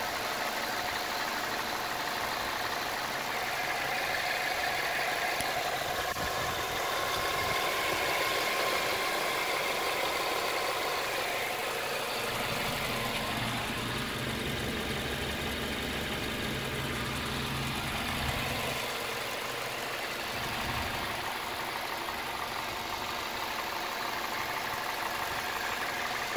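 Toyota 1ZZ-FE 1.8-litre four-cylinder engine idling steadily, heard with the hood open.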